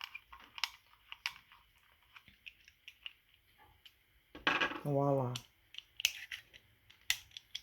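Light, irregular clicks and small metallic scrapes from a utility knife being handled and screwed back together after a blade change. A single spoken word breaks in about halfway through.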